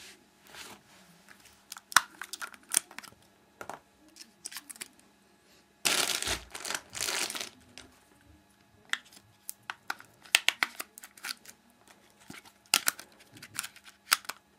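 Handling noise of a small plastic pocket camcorder being picked up and turned over in the hands: scattered light clicks and taps, with a louder crinkling rustle about six seconds in that lasts about a second and a half.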